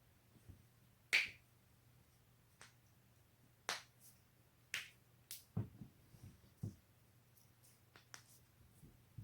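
Neck joints cracking: a sharp pop about a second in, then a run of half a dozen more pops and clicks over the next few seconds, some quieter and duller.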